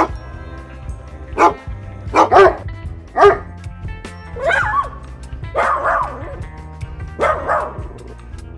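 A dog barking about eight times, short sharp barks at first and then three longer, wavering barks, over background music.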